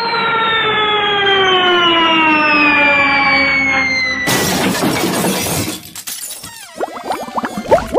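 Cartoon falling-whistle sound effect: one long tone sliding steadily down in pitch, cut off about four seconds in by a loud crash as the falling character hits the ground. A flurry of short, quick chirps follows near the end.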